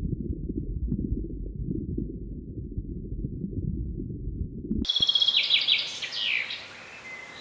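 A low, crackly rumble for about five seconds, then, after a sudden cut, a songbird giving a quick run of high chirps that fall in pitch.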